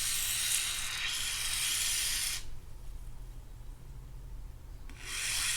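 Aerosol can of Corrosion X spraying onto a corroded reel part: a steady hiss that stops about two and a half seconds in, then a second, shorter spray near the end.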